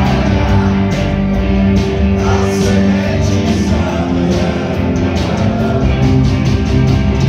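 Rock band playing live and loud in a theatre: electric guitars holding chords over drums and cymbals, with a voice singing.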